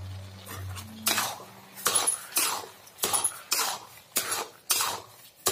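A spoon stirring and scraping through thick, sugared grated-carrot halwa in a metal pan, in regular strokes about two a second.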